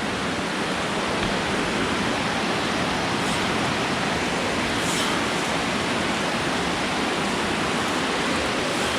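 Steady rush of moving water, an even hiss-like roar that does not change.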